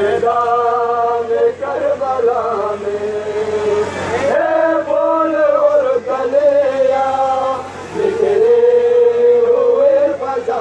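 Male voices chanting a Shia mourning lament (nauha) in long, slowly gliding held notes, amplified over street loudspeakers.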